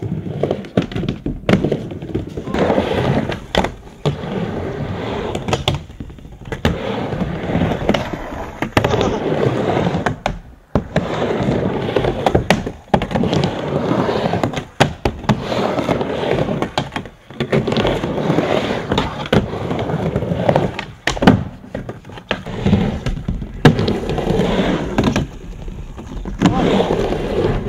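Skateboard rolling back and forth on a wooden mini ramp: a steady wheel roar broken by frequent sharp clacks and knocks as the board and trucks hit the ramp and coping. Near the end pumpkins knocked off the deck land with thuds.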